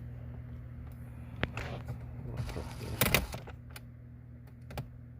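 Hands working on the Honda Civic's plastic dash trim while driving in a Phillips screw: a few sharp clicks and knocks, the loudest cluster about three seconds in, over a steady low hum.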